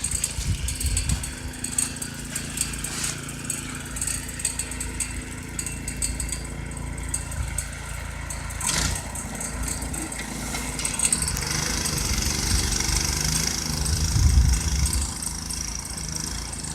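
Snowblower's small engine running steadily.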